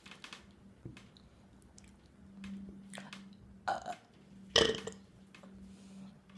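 A person burping deliberately: a short burp about three and a half seconds in, then a louder one about a second later.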